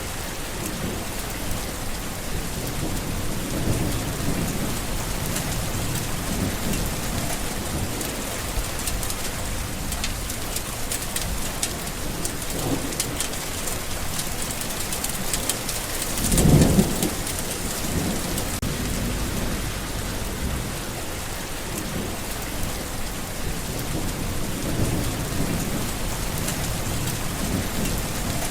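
Steady rain falling, with low rolls of thunder now and then. The loudest thunder rumble comes a little past halfway.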